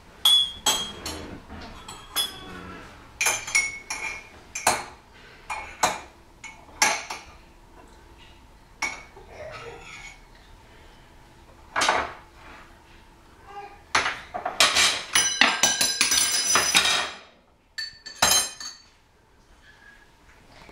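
A spoon clinking, knocking and scraping against dishes as a child stirs at a tiled counter, in irregular single clinks with a fast run of ringing clinks about three-quarters of the way through.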